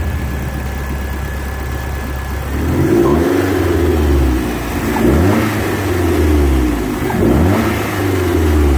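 Turbocharged engine of a 2017 Polaris Slingshot SL LE, fitted with an Alpha turbo kit and a custom exhaust married to the turbo muffler, idling and then revved three times from about two and a half seconds in, the pitch rising and falling with each rev.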